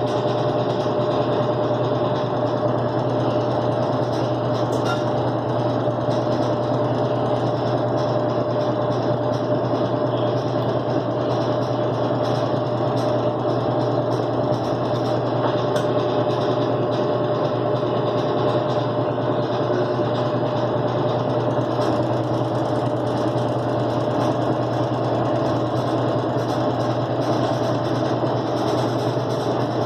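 Electrolux Top 8 top-loading washing machine on its spin cycle: a steady mechanical drone with a constant whine, running at an even speed. It is the spin noise that the repairer puts down to the hoses knocking against the side of the tub together with the drive belt and the idler pulley.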